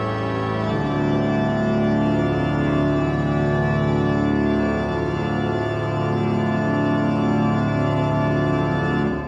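Soundtrack music of sustained organ chords, changing now and then and held at an even level, breaking off just before the end and starting to die away.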